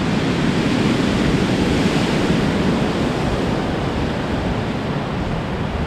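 Ocean surf rushing in a steady, even wash of noise.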